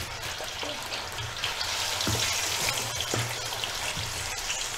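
Chicken drumsticks sizzling and crackling in hot oil in a pan as more pieces are dropped in, with a few light pops now and then; the chicken is wet and the oil spits.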